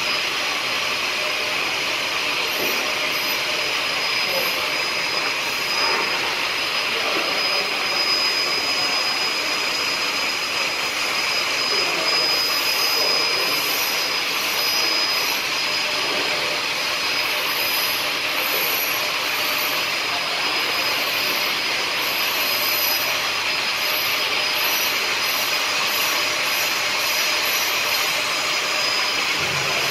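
Play dough extruder and packing machine running steadily: a continuous mechanical drone with a thin, steady high whine.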